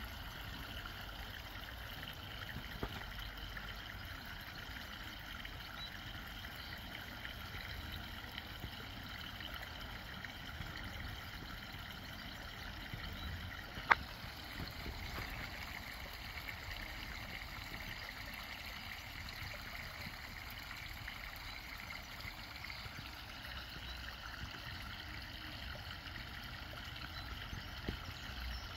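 Steady outdoor rushing noise, like running water, with one sharp click about halfway through.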